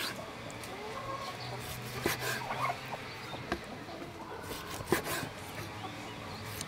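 Cleaver slicing through beef liver and knocking on a wooden chopping board, a few knocks about one and a half seconds apart. Chickens cluck faintly in the background.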